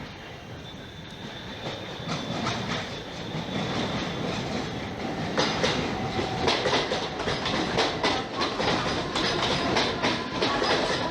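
A train approaching and running past, getting steadily louder, with a faint high-pitched squeal in the first few seconds. From about five seconds in, its wheels clatter rhythmically over the rail joints.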